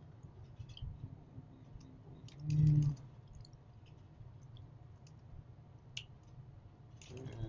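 Computer keyboard keys clicking now and then as a text file is scrolled through, with a short low hum about two and a half seconds in.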